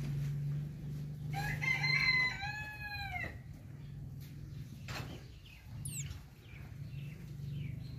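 A rooster crows once, about a second and a half in: a pitched call of several parts lasting about two seconds, the last part falling. A steady low hum runs underneath, with a brief high chirp about six seconds in.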